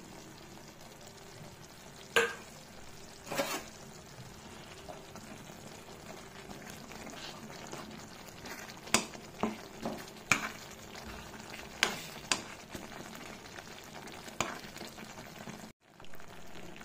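Thick curry gravy sizzling in a pan while a spoon stirs it, with several sharp knocks of the spoon against the pan. The gravy has cooked down to where its oil separates out.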